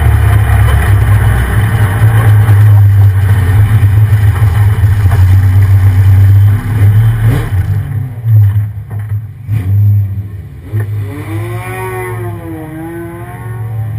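Engine of a 1993 Ford F-150 SVT Lightning pickup running hard with a loud, deep, steady drone, easing off about seven seconds in. Near the end a softer engine note rises and falls.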